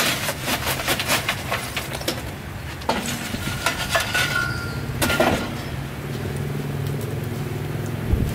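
A quick run of clicks and clinks, with a few more later. Under them a steady low hum, like a motor running, sets in about two seconds in and stops abruptly near the end.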